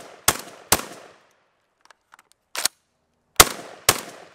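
IWI Tavor TS12 12-gauge semi-automatic bullpup shotgun fired rapidly, shots about half a second apart. Two shots come first, then a pause of light clicks and one short, sharp knock, then a fresh string of shots near the end.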